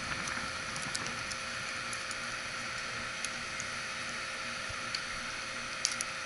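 Faint small clicks and taps of fingers handling the plastic toy quadcopter and its tiny camera and wiring, a few scattered times, over a steady hiss.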